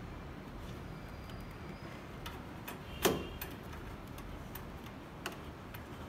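Small screwdriver working the screw of a terminal block on a circuit board, tightening a wire in: a few light ticks and one sharper click about three seconds in.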